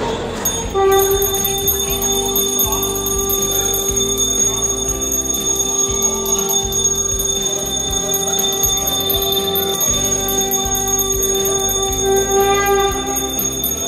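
Background music built on one long held note, with a steady higher ringing tone above it.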